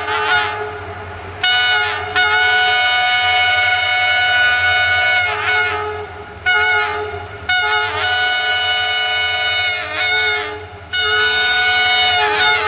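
The multi-tone air horn of a Romanian EGM621 (CFR Class 65) diesel locomotive sounds a chord in a string of about eight long and short blasts as the train approaches. The longest blasts run about three seconds, and one is still sounding at the end.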